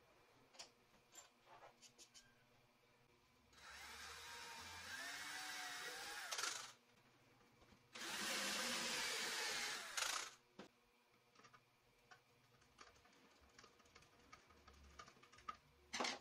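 Cordless drill boring through plywood in two runs of a few seconds each, the motor's whine wavering in pitch as the bit bites. Small handling clicks in between, and a sharp knock near the end.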